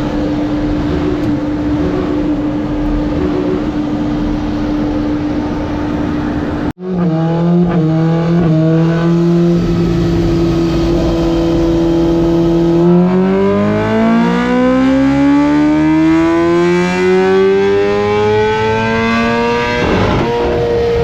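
BMW motorcycle engine running under test, held at steady revs. About seven seconds in the sound breaks off abruptly and resumes at a lower steady note. Then the revs climb smoothly for several seconds in a long acceleration run.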